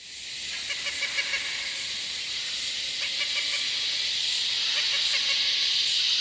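A steady hissing noise that fades in at the start and then holds level, with a few faint short chirps about a second in.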